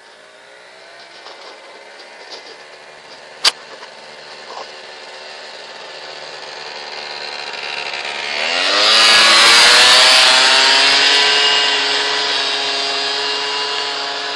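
Piaggio Typhoon scooter engine approaching, growing steadily louder and rising in pitch as it nears, passing close by about nine seconds in, then fading as it rides away. A single sharp click about three and a half seconds in.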